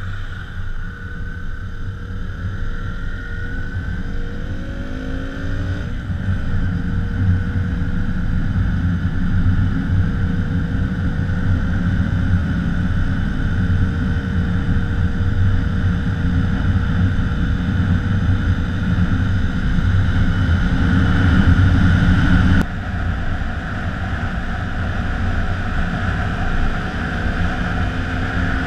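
KTM 125 Duke's single-cylinder four-stroke engine pulling a moving motorcycle, revving up in the first six seconds and then running at a steady speed, with heavy wind rush on the microphone. The sound drops abruptly about 23 seconds in.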